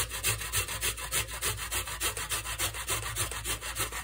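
Fresh ginger root rubbed back and forth on the fine side of a stainless steel grater, a steady rasping at about three strokes a second.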